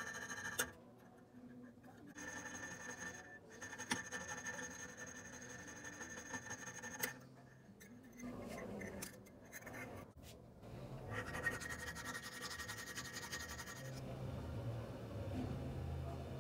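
Scratching and rubbing from hand work on a workpiece, with a few sharp clicks.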